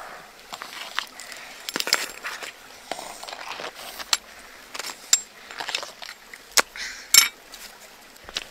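Irregular sharp clicks, knocks and crunches of hard things being handled, the loudest coming about seven seconds in.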